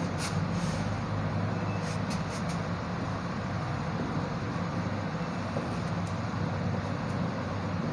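A marker writing on a whiteboard, a few faint short strokes, over a steady low background rumble.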